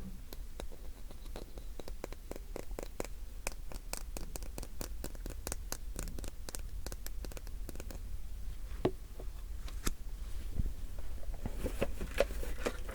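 Light, sharp clicks and taps on a small hand-held object, about four a second for several seconds, then two stronger clicks and a stretch of scratching near the end.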